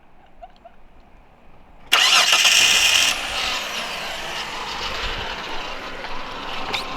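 A car engine cranks and starts about two seconds in, loudest for a second as it catches, then runs steadily.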